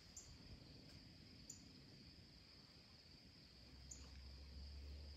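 Faint outdoor insect chorus: a steady high-pitched drone, with short, higher chirps every second or two. A low rumble comes in about three and a half seconds in.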